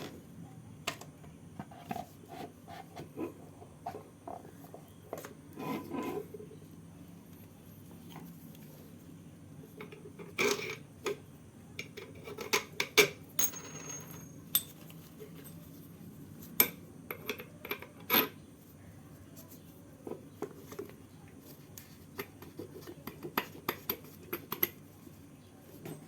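Metal tools and parts clinking and clattering: many separate sharp clicks and knocks, loudest in a cluster about halfway through, over a low steady background hum.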